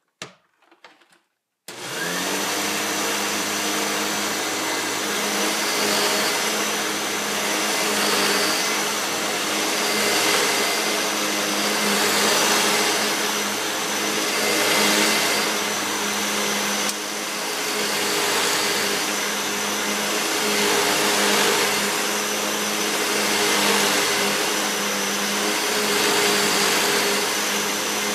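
Hoover WindTunnel self-propelled upright vacuum cleaner (U6634-900) switched on about two seconds in and running steadily. Its sound swells and eases every couple of seconds as it is pushed back and forth, vacuuming up baking soda.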